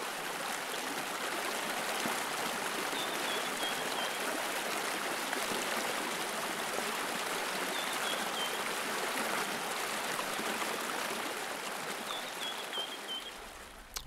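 Steady running-stream sound with a bird giving three short runs of high, falling chirps several seconds apart. It fades out near the end.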